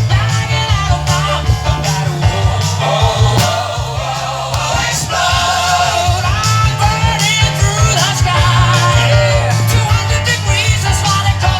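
Music with a singing voice over a steady beat and bass.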